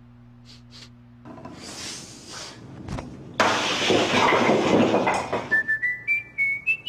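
A stack of concrete blocks smashed by a karate strike: a loud crash and crumble of breaking concrete lasting about two seconds, preceded by a low hum and a rush of air. Near the end, a short whistled jingle rising in steps.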